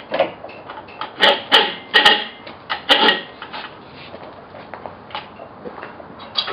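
Metal clanking and rattling as a hub puller and brake drum are handled, with a run of sharp knocks that ring briefly in the first few seconds, then only a few light clicks.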